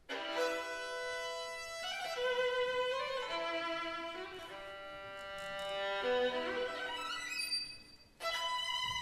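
Solo violin playing a melody of long held notes, alone, with a short break in the sound about eight seconds in.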